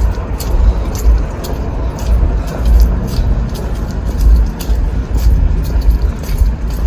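Footsteps walking, about two steps a second, over a loud, uneven low rumble.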